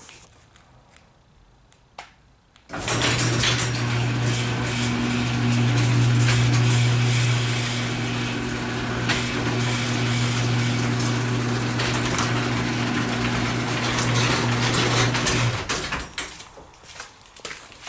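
Chamberlain LiftMaster garage door opener running through one full travel of the door: a steady motor hum over the noise of the moving door for about thirteen seconds. It starts suddenly a few seconds in, just after a single click, and cuts off sharply near the end.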